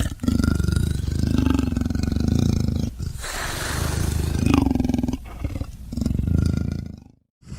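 A big cat roaring and growling in several long, rough, low-pitched calls with short breaks between them.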